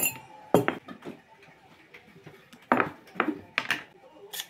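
Metal teaspoon and tableware clinking as a hot drink is made: a spoon knocking against a ceramic mug, a glass sugar bowl and a metal instant-coffee tin. Two sharp knocks in the first second, then a quick cluster of clinks and taps from about two and a half seconds in.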